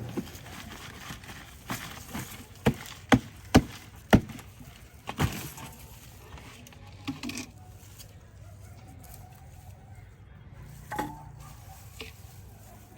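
A digging tool chopping into the soil to dig up potatoes: about six sharp strikes between about two and five seconds in, then a few fainter knocks.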